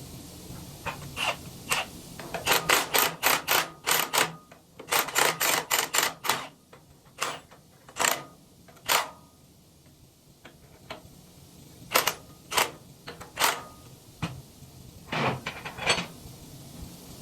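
Sharp metal clicks and taps from hand tools working on a wood chipper's anvil, coming in quick runs of about five a second in the first few seconds, then singly about a second apart.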